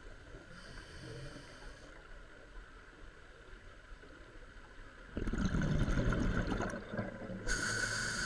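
Water noise: faint for about five seconds, then a sudden loud rushing and bubbling, with a brighter hiss near the end.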